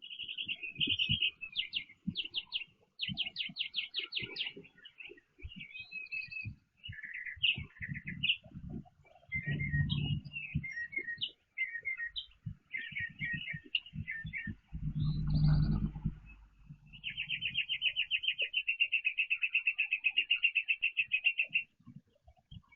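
Backyard songbirds chirping and calling, with quick runs of chips, then a rapid, even trill lasting about four seconds near the end. Low thumps and rustling on the microphone come twice in the middle.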